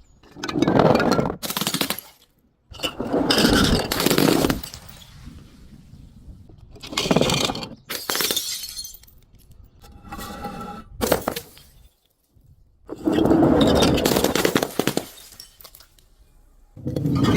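Glass bottles being crushed and shattering, in about six separate crunching bursts of one to two seconds each, with glass ringing briefly in one of them.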